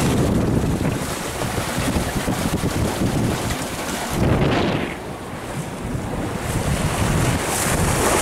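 Wind buffeting the microphone over the rush of waves and water along the hull of a sailboat reaching in about 20 knots of wind. There is a louder rush about four seconds in.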